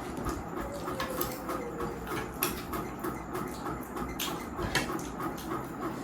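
A person eating spicy instant noodles close to the microphone: chewing with irregular small wet mouth clicks, a few sharper ones about two and a half seconds in and again past four seconds.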